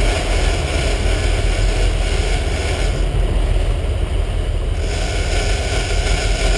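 Fishing boat's engine running steadily, with wind noise on the microphone.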